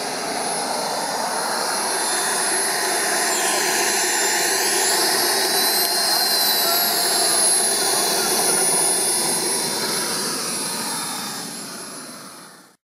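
Model jet's JetCat P-90 RXi turbine running with a steady high whine over a dense roar; the pitch rises a little about halfway through and eases back, and the sound fades away near the end.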